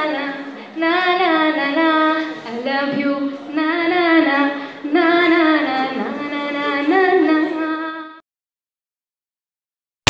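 Women singing a Bengali song into stage microphones, unaccompanied, in phrases with gliding, ornamented pitch. The singing cuts off abruptly about eight seconds in, followed by dead silence.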